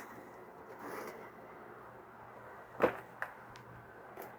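Hard plastic hydroponic kit parts being handled on a workbench: one sharp knock about two-thirds of the way in and a couple of faint clicks, over a low steady hum.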